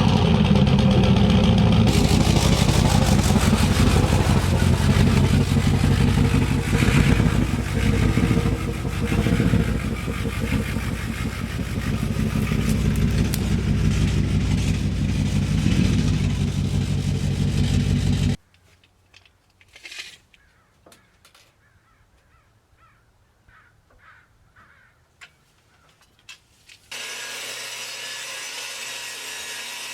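Chainsaw engine running, cutting off abruptly about 18 seconds in. Scattered clicks and knocks follow, then a steadier, quieter noise starts near the end.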